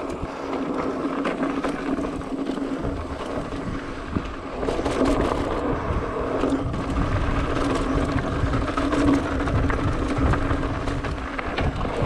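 Mountain bike riding fast down a dirt downhill trail: tyres rolling over loose dirt and stones, the bike clattering over bumps, and wind buffeting the camera microphone. A steady buzz runs underneath, and it all gets louder about five seconds in.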